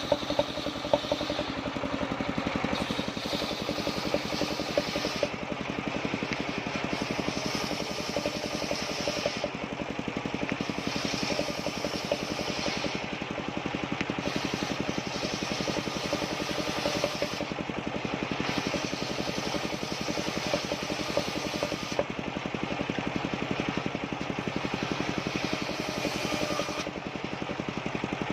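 Engine-driven portable circular sawmill running steadily while sawing waru wood into battens, with a higher rasp that swells and fades every few seconds.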